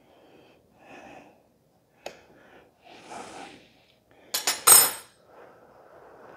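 A fork clicks once on the metal sheet pan, then breathy puffs of air, the loudest about four and a half seconds in: blowing on a hot spear of roasted asparagus before tasting it.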